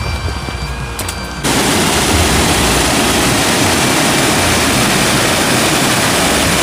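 Background music at the start, then about a second and a half in a loud, steady roar of rushing water cuts in suddenly: a waterfall pouring through a rocky gorge.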